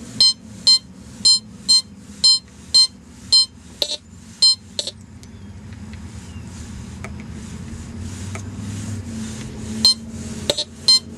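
Teknetics Omega metal detector sounding short, high target beeps, about two a second, as its 11-inch DD coil sweeps back and forth over a buried metal target that reads as a good, deep signal. The beeps stop for about five seconds midway and start again near the end.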